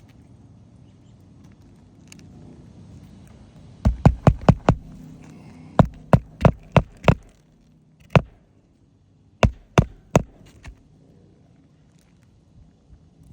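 Roofing hammer driving nails to fasten shingles: quick runs of sharp blows, about three a second, with pauses between runs.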